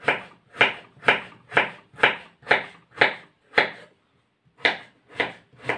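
Kitchen knife slicing raw potatoes into rounds on a wooden cutting board, each cut ending in a knock on the board. The cuts come about two a second, with a short pause about four seconds in.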